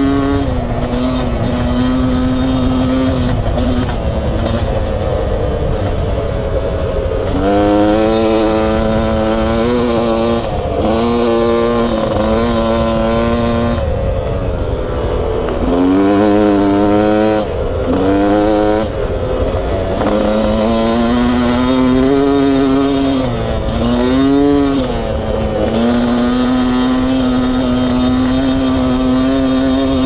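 Beta 300RR's single-cylinder two-stroke engine under way, holding a steady pitch for long stretches and several times dropping and climbing again as the throttle and gears change.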